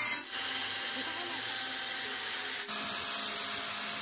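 Handheld electric cutter (angle-grinder type) running with its cutting disc in a laptop's keyboard base: a steady grinding noise with a faint whine, dropping off briefly twice.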